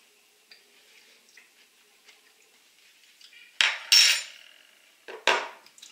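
A metal spoon clinking against a dish after a near-quiet start: a couple of sharp knocks with a brief ring a little past halfway, then two more knocks near the end.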